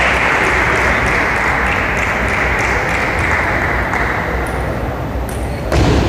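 Spectators applauding in a large hall, the clapping dying away over the first few seconds, with light clicks of a table-tennis ball through it and one loud sharp knock near the end.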